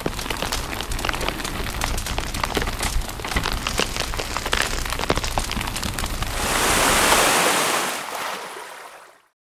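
Sound effects for an animated fire-logo intro. Dense crackling with many sharp pops over a low rumble, then a loud rushing swell about six to eight seconds in that fades away.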